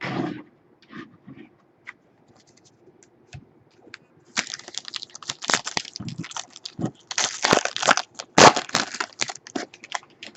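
A trading card pack's wrapper being torn open and crinkled: scattered small crinkles at first, then a dense crackling from about four seconds in, lasting nearly to the end.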